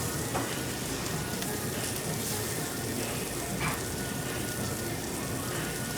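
Food sizzling steadily on a tabletop Korean barbecue grill.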